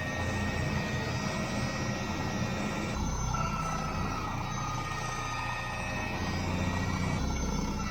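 Skid steer loader running with a Diamond Mowers brush cutter attachment spinning, a steady engine drone with a high whine held over it. The sound shifts about three seconds in and again near the end.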